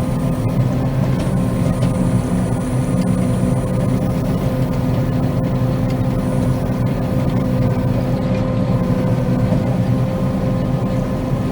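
Combine harvester running steadily while cutting soybeans: a constant low engine and threshing drone with a steady whine above it.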